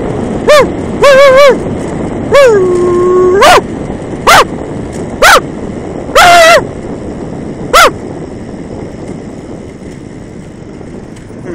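A man imitating a dog barking with his own voice: about seven loud, high barks in the first eight seconds, one of them a longer call that drops in pitch and holds about two and a half seconds in.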